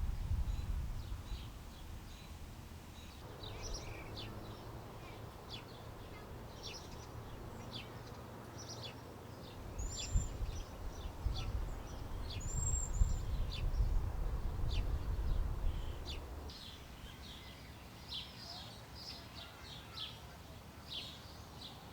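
Birds chirping outdoors, many short high calls one after another, over wind rumbling on the camcorder's built-in microphone. The wind gusts hardest at the start and through the middle.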